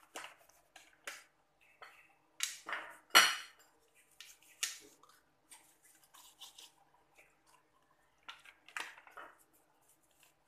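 Hands rubbing salt into a whole ikan baung (river catfish) on a ceramic plate: scattered short wet rubbing noises and light knocks of the fish against the plate, the loudest about three seconds in.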